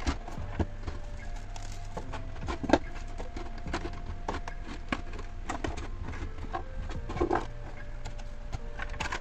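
Plastic clamshell packaging being handled and opened: a string of irregular plastic clicks, taps and crinkles.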